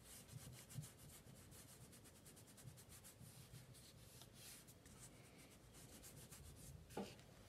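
Faint rubbing and light scratching of fingertips pressing down a glued wooden craft stick along its length, with a soft tap near the end.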